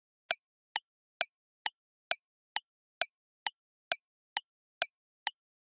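Countdown timer sound effect: a clock ticking evenly, about two short ticks a second.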